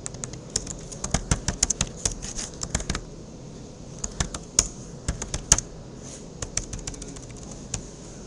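Typing on a computer keyboard: quick runs of key clicks in three bursts with short pauses between, as commands are keyed in.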